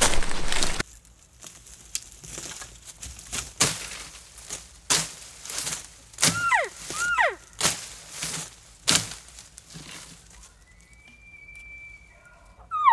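Brush rustling against clothing, then footsteps snapping twigs on the forest floor. About six seconds in come two short cow elk calls about half a second apart, each falling steeply in pitch. Near the end there is a faint, steady high whistle.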